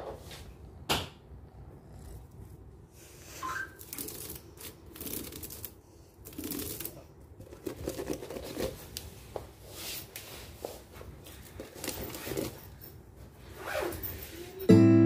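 Scattered light rustles and clicks from a white Persian kitten shifting on a woven wicker stool while being stroked, with one sharper click about a second in. Loud keyboard music comes in just before the end.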